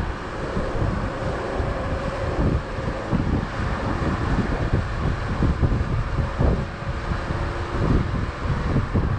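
Wind buffeting a GoPro's microphone from the moving Jeep Rubicon, a dense low rumble with the vehicle's running noise underneath and a faint hum.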